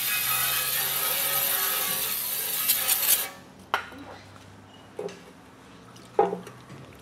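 Aerosol brake cleaner hissing steadily as it is sprayed into an empty steel transmission pan, cutting off abruptly about three seconds in. Then three short knocks, the last the loudest.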